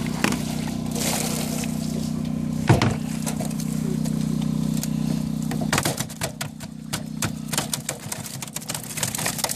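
A steady low motor hum with a single thump about three seconds in. The hum stops about halfway through, and live carp flap and slap against a plastic crate and a landing net in a quick, irregular patter of knocks.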